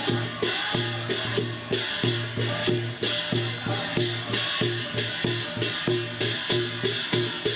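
Percussion music: drums beating a steady, even rhythm of about two strokes a second, each stroke carrying a short pitched note.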